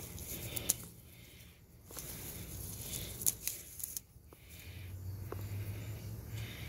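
Oregano stems and leaves rustling as they are handled and cut, with a few brief clicks from the scissors snipping.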